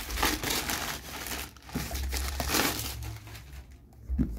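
Plastic courier mailer bag crinkling and rustling as a cardboard box is pulled out through its torn opening, quieting in the last second with a soft bump near the end.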